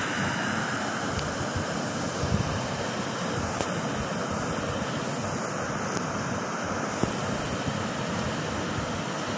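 Steady rushing background noise with a few faint light clicks.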